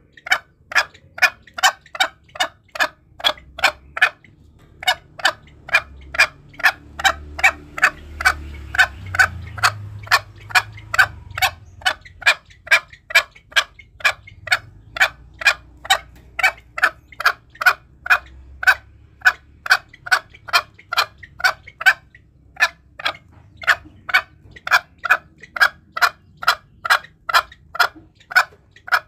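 Green junglefowl calling as a hunting lure: a steady run of short, sharp clucks, about two to three a second, with a brief break about four seconds in.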